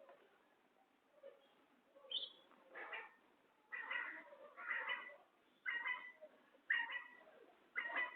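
Quail calling: a run of short, harsh calls about once a second.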